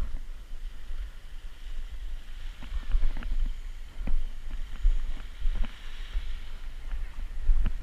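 Low wind rumble on the microphone with scattered sharp clicks and knocks, over a faint steady hiss of the sea.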